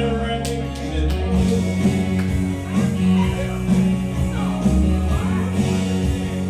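Country karaoke backing track with guitar, with a man singing along over it.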